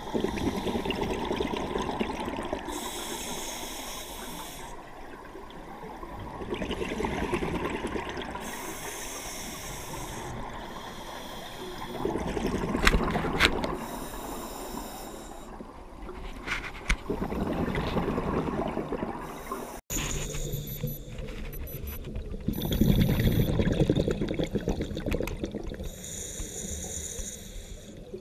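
Scuba diver breathing through a regulator underwater: a hiss on each inhale and a rush of exhaust bubbles on each exhale, about one breath every five to six seconds.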